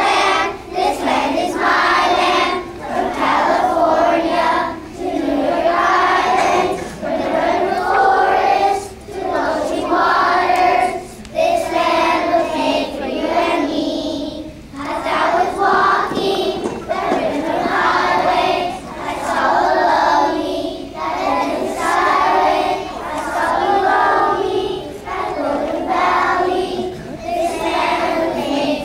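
A group of kindergarten children singing a song together, in phrases of a second or two with short breaks for breath between them.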